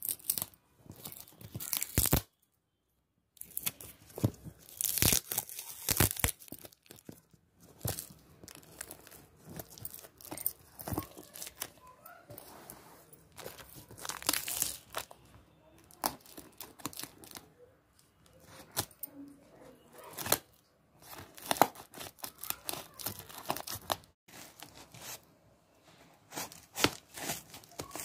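Cardboard parcel wrapped in clear packing tape being torn open by hand: irregular ripping and crinkling of tape and cardboard, broken by a second of silence about two seconds in.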